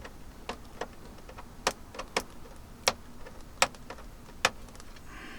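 Sharp clicks and light knocks of hard plastic, about six spread irregularly, as the mini air conditioner's plastic casing and panels are handled.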